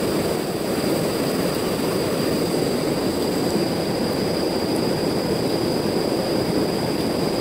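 Steady rushing of a fast-flowing river running high and swollen after heavy rain.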